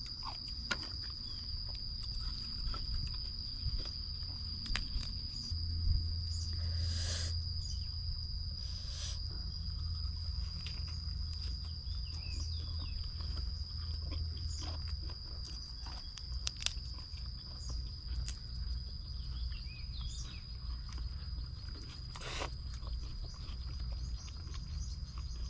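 Outdoor ambience dominated by a steady high-pitched insect drone, over a low rumble. A few brief crunches come through as raw vegetables are bitten, along with occasional faint chirps.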